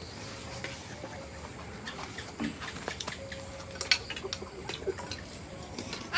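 Scattered light clicks and taps of utensils against dishes, with one sharper click about four seconds in.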